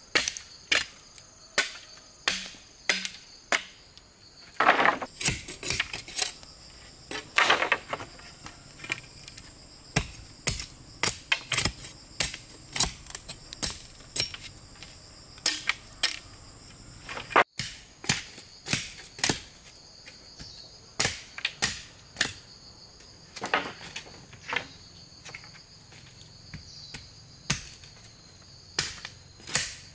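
A machete chopping into a dry bamboo pole: sharp, irregular hacks, about one or two a second. A steady high insect drone runs underneath.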